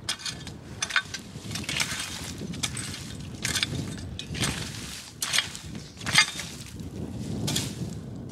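A hand hoe chopping and scraping into dry, stony soil in regular strokes, about one a second, weeding around agave plants.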